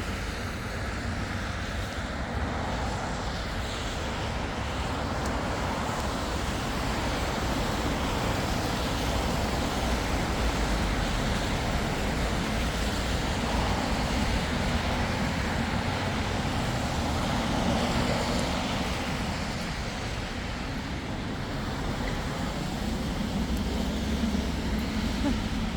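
City street traffic: a steady wash of road noise from passing cars, with a low rumble, swelling gently in the middle as vehicles go by.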